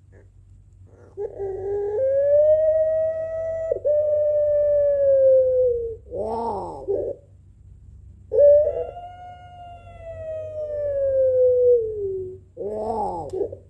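Puter pelung, a long-calling ringneck (Barbary) dove, giving two long drawn-out coos. Each starts with a short lower note, rises into a long held note that slowly sinks in pitch, and ends in a brief rough falling note.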